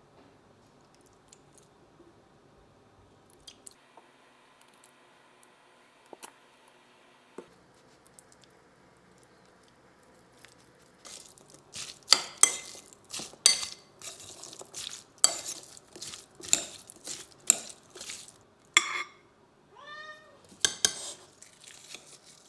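Dishes and cutlery clinking and clattering in a quick run of sharp knocks that starts about halfway through, after a near-quiet first half. A cat meows briefly near the end.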